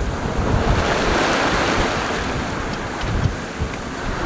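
Rushing and breaking waves around a sailing yacht under way in strong gusty wind, with wind buffeting the microphone as a low rumble. The rush of water swells to a peak about a second and a half in, then eases.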